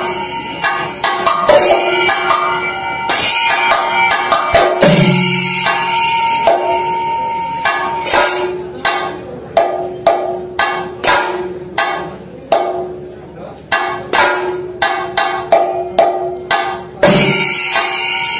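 Thayambaka drumming on chenda drums beaten with sticks. Fast, dense rolls thin out about eight seconds in to separate hard strokes, about two a second, then build back to a loud, dense passage near the end.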